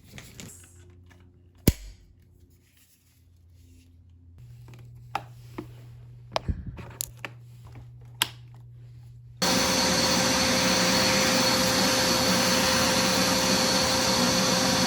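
Scattered clicks and knocks of a carpet cleaner's hose and stair tool being handled and fitted. About nine seconds in, the Hoover SmartWash Pet Complete carpet cleaner switches on and runs steadily and loudly, a rushing motor noise with a steady hum in it.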